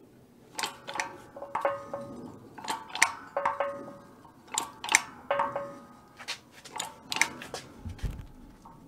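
Hand-pumped 12-ton shop press forcing a square punch into steel plate: repeated metallic clicks and creaks, many with a short ringing ping, come about once a second as the load builds. A dull thud follows near the end.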